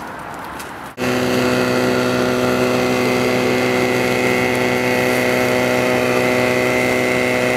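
An engine running steadily at an even speed, a constant hum with a faint high whine, which cuts in abruptly about a second in; before that, a brief stretch of outdoor noise with light clicks.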